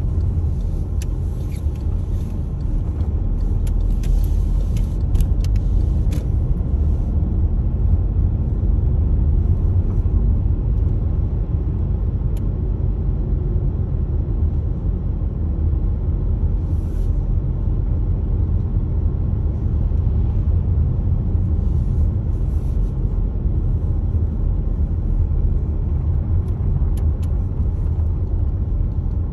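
Steady low rumble of a car's road and engine noise heard from inside the cabin, with faint scattered ticks in the first few seconds.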